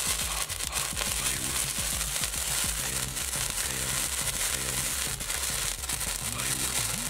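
Sparkler burning: a steady fizzing hiss full of fine crackles, over background music.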